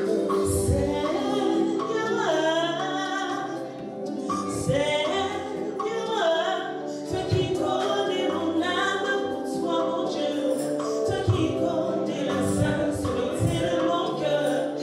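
Group of voices singing a gospel song over a band, with a bass line changing notes and regular drum hits.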